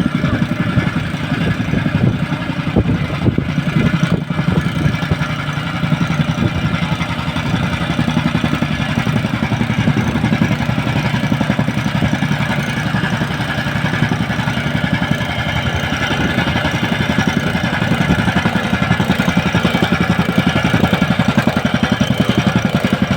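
A small engine running steadily at an even speed, with a fast regular pulsing throughout.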